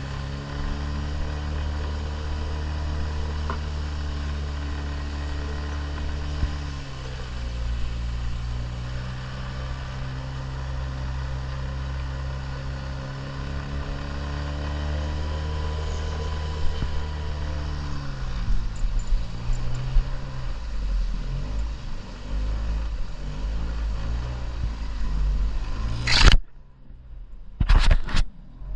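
An engine running steadily under load. Its pitch drops about seven seconds in and again near two-thirds of the way through, and it runs rougher after that. Near the end there is a loud sudden burst and the sound cuts out briefly a few times.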